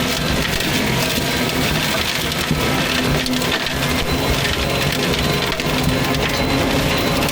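Fecon forestry mulcher head grinding and shredding brush and wood steadily, with the carrier machine's diesel engine running under load beneath it.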